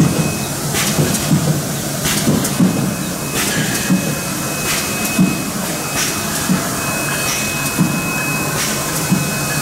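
Fully automatic rotary-index screen printing machine and its feed conveyor running: a steady machine hum with short air hisses about once a second, typical of pneumatic cylinders cycling, and a thin high whine that comes and goes.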